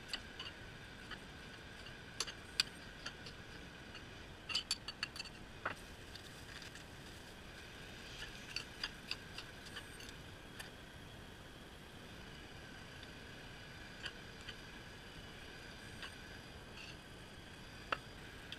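Knife blade clicking and tapping on a ceramic plate as vegetables are cut on it, with scattered clinks in short clusters over a steady background hum.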